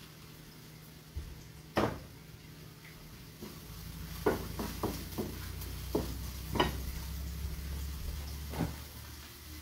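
Pans and cookware being set down and handled on a stovetop: a scatter of sharp knocks and clinks. Under them runs a low steady hum that starts about a second in and stops near the end.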